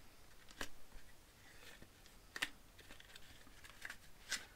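Faint handling noises of a hatchet being taken in hand and uncovered: a few short sharp clicks with light rustling, the loudest near the end.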